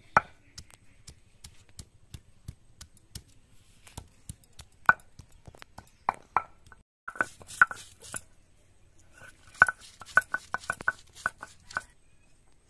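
A hand-held grinding stone striking and crushing spice root on a flat stone grinding slab, sharp irregular knocks with quicker runs of taps about halfway through and again toward the end.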